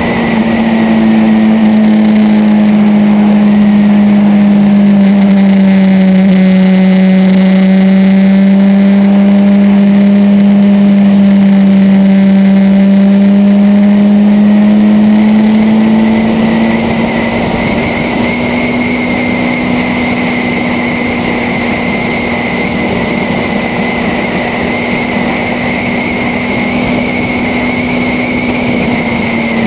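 Motorcycle engine running at a steady cruising speed, heard from a camera on the bike. Its drone sags slightly in pitch and then comes back up, and it gets a little quieter after about sixteen seconds.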